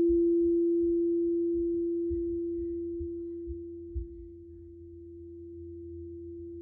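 Singing bowl ringing on one steady, nearly pure tone, slowly fading. Underneath are a few dull low thumps of footsteps from upstairs.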